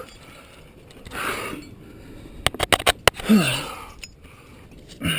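A climber breathing hard through the nose and mouth while straining on a crack move, with a short falling grunt just past the middle. Just before the grunt comes a quick run of five or six sharp clicks.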